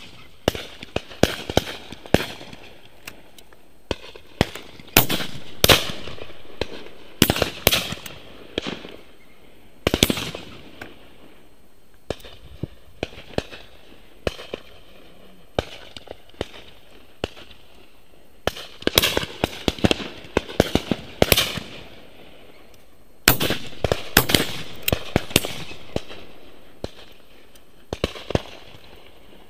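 Many shotguns firing at driven ducks: dozens of shots, some close and loud and others fainter and farther off, each with a short echoing tail. They come in flurries of several shots, with lulls of a few seconds between.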